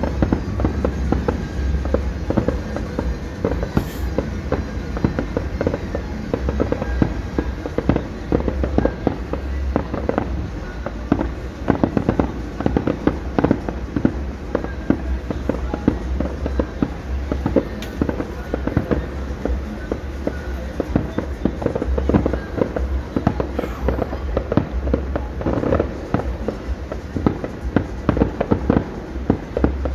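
Fireworks going off without a break: a dense, rapid run of pops and crackles over a low rumble.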